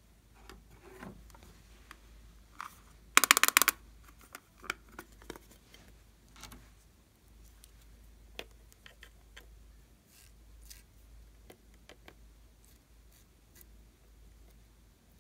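Hands handling a plastic eyeshadow palette: a quick run of loud sharp clicks about three seconds in, then faint scratching and scattered ticks as a sponge-tipped applicator scrapes powder from the pans.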